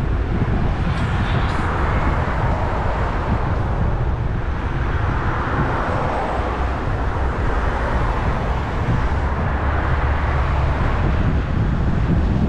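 Car driving along a road: steady road and wind noise, a low rumble under a rushing hiss that swells and eases a little a few times.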